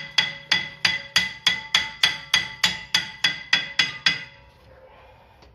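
A hammer striking a rusted-on VW Tiguan front brake rotor about three times a second, each blow ringing the metal, to knock the stuck rotor loose. The blows stop about four seconds in.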